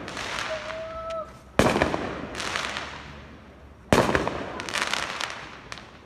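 New Year's fireworks going off: two loud sudden bangs, about a second and a half and about four seconds in, each trailing off into a couple of seconds of dense crackling.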